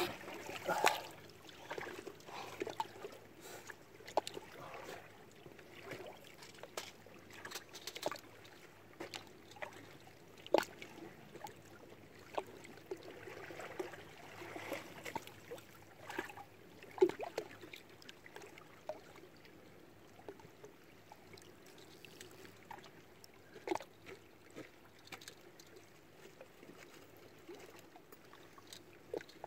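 Small waves lapping against shoreline rocks at the edge of a lake, with irregular slaps and gurgles every second or two.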